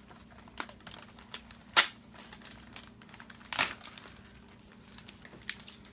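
Packaging being handled as an RC car is lifted out of its box: crinkling and rustling with scattered small clicks, and two sharp, louder snaps, one about two seconds in (the loudest) and another about a second and a half later.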